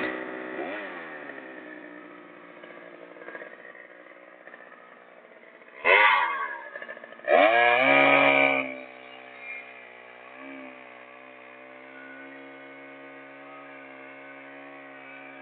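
Gasoline chainsaw engine running: it falls back to idle just after the start, is blipped once sharply about six seconds in, then revved high for about a second before dropping back to a steady idle.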